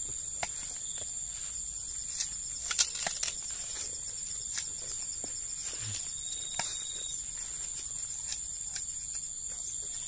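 Steady high-pitched insect trill from the surrounding field, with scattered crunching clicks of raw black sugarcane being chewed, loudest in a cluster a few seconds in.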